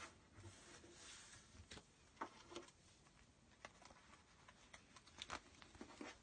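Faint rustling and light ticks of a printed paper sheet being handled and slid into a felt pocket, with the strongest ticks a little past two seconds and just after five seconds.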